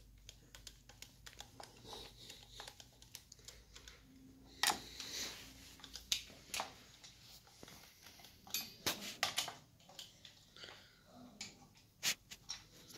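Faint, scattered clicks and taps of a screwdriver and small parts being handled on the top cover of a submersible sewage pump, with a sharper knock about five seconds in and a quick run of clicks around nine seconds.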